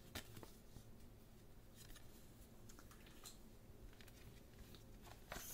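Faint handling sounds of a plastic CD jewel case being picked up and set down, with scattered light clicks and a louder click near the end.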